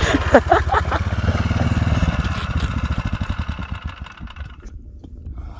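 A Rokon Trailbreaker's 7 hp Kohler engine running hard as the two-wheel-drive bike bogs down in deep snow. Over the last two seconds the engine slows and fades away.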